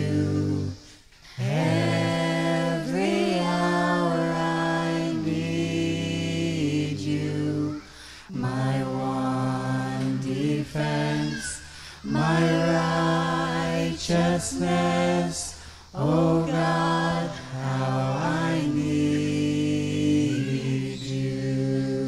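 Mixed group of men's and women's voices singing a cappella in close harmony, in long held phrases with short breaks between them.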